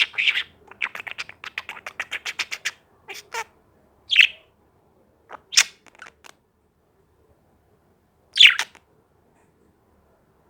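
Pet bird making angry calls: a quick run of short chattering notes, about eight a second for the first few seconds, then three louder single harsh calls spaced a few seconds apart.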